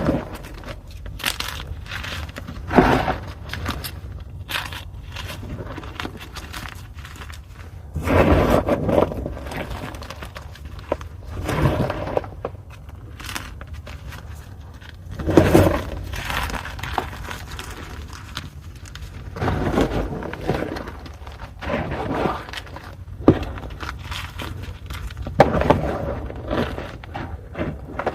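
Pieces of gym chalk (magnesium carbonate) being crushed, crunching and crumbling in irregular bursts, with a few heavier crunches spaced several seconds apart.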